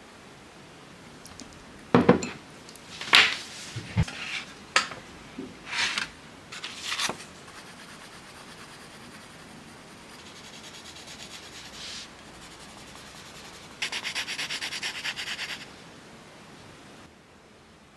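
Colored pencil scratching on notebook paper, ending in a burst of rapid back-and-forth shading strokes. Near the start, a few sharp clicks and rustles of pencils and paper being handled.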